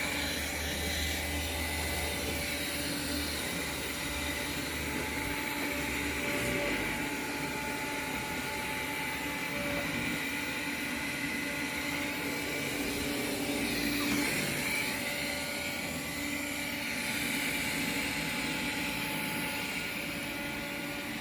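Robot vacuum cleaners running: a steady whir of fans and brushes with a high whine over it. A low hum under it stops about six seconds in.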